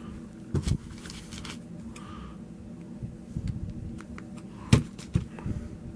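Light handling noises of a small plastic action figure being worked by hand: scattered small clicks and soft rustles over a steady low room hum, with the sharpest click a little before five seconds in.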